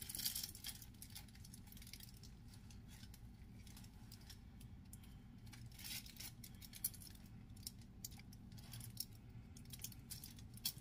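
Aluminium foil crinkling faintly in the hands as a foil-wrapped log is twisted closed at both ends, with a few sharper crackles, over a steady low hum.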